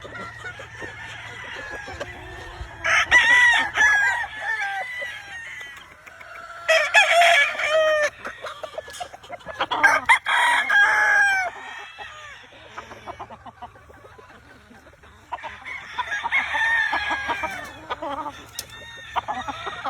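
Several gamefowl roosters crowing, one after another in four loud bouts, with quieter crowing and clucking between.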